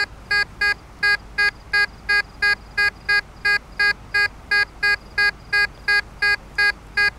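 Tesoro De Leon metal detector beeping: a rapid, even series of short electronic beeps, about three a second, as the coil is swept back and forth over a buried target. The target reads in the mid-70s conductivity range and turns out to be a 10-cent coin.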